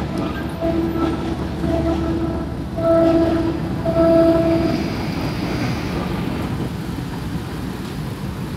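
Thai diesel passenger train running away from a level crossing with a steady rumble, its horn sounding four or five short blasts in the first five seconds, the last two the loudest. After that the train's rumble carries on alone, under motorbike and car traffic moving across the tracks.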